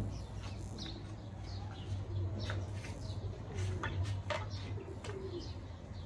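Birds chirping: scattered short calls over a low steady hum.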